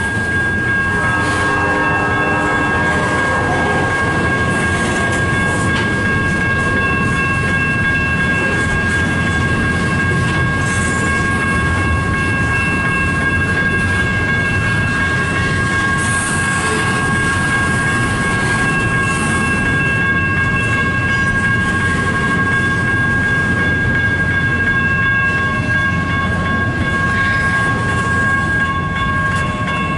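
Freight train of double-stack cars rolling slowly past, a steady loud rumble and rattle of the cars with a constant high whine over it.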